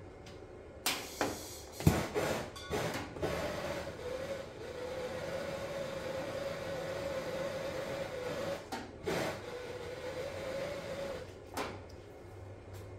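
Handheld gas torch: a few clicks and knocks, then its flame burns with a steady hiss and a held whistling tone, breaking off briefly about nine seconds in and stopping a couple of seconds before the end, as it heats shrink tubing on a wire connector.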